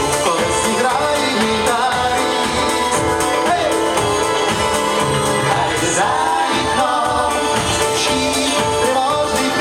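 Band music in a passage without sung words, a lead melody line sliding between notes over the full band.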